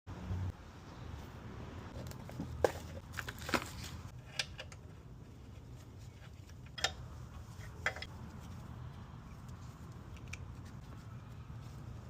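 A handful of sharp metallic clinks and knocks, as from hand tools being picked up and set down, scattered over a low steady hum.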